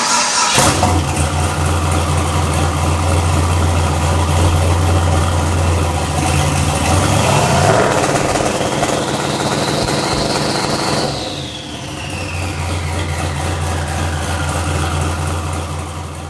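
Car engine starting suddenly and running at a steady, deep idle, with a short rev about seven to eight seconds in and a high whistle that rises and then falls over a few seconds after it. The sound fades out at the end.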